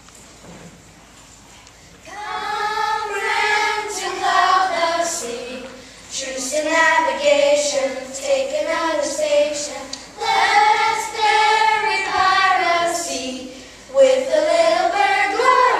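A group of children singing together as a chorus, starting about two seconds in and going on in phrases of roughly four seconds.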